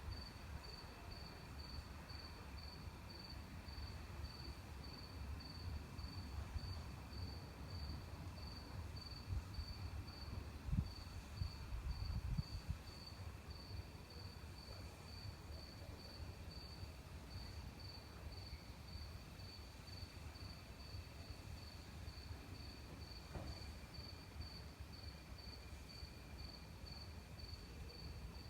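Crickets chirping at night: one gives a high, even chirp about twice a second over a steadier lower trill, with a low background rumble and a couple of faint bumps about eleven and twelve seconds in.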